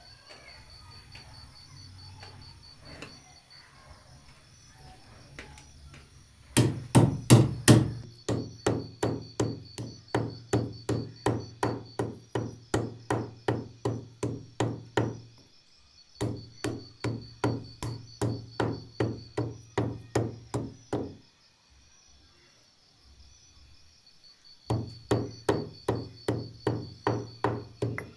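A stone pestle pounds spices in a heavy stone mortar in steady strikes, about two a second, beginning about six seconds in. The pounding runs in three stretches, with a brief stop near the middle and a longer pause of a few seconds later on.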